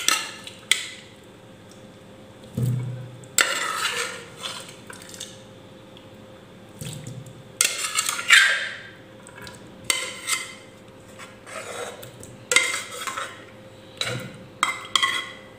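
A plastic spoon scraping and knocking against a metal pressure-cooker pot as boiled carrot slices are scooped out and dropped into a plastic mixer jar, in irregular clatters with a few dull thuds.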